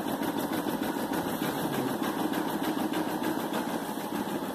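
Brother PE460LDV embroidery machine stitching, its needle running in a fast, steady, even rhythm.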